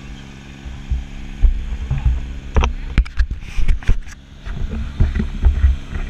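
Motor lifeboat's engine running with a steady low hum, overlaid from about a second in by heavy rumbling wind buffets and a cluster of sharp knocks on the camera as it swings.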